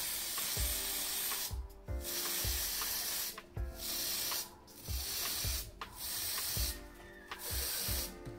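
Tamiya TS aerosol spray paint can hissing as it sprays in bursts of about a second each, with short breaks between.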